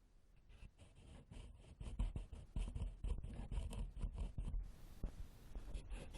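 Close-up scratching and scraping of ear cleaning with an ear pick, in quick, irregular strokes that begin about two seconds in after a near-silent start.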